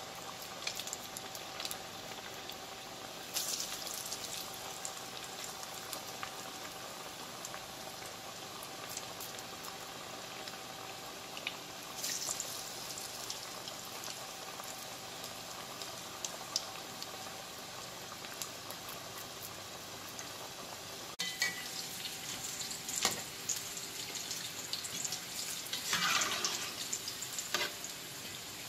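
Masala vadas (chana dal fritters) deep-frying in hot oil in a steel kadai: steady bubbling and fine crackling, louder and busier in the last several seconds.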